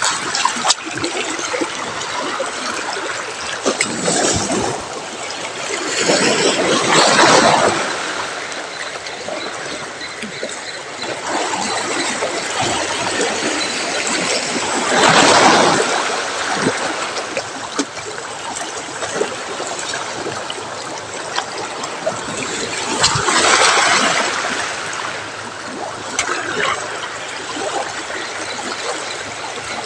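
Sea waves washing onto a rocky shore, a steady wash with a bigger wave swelling and falling back about every eight seconds.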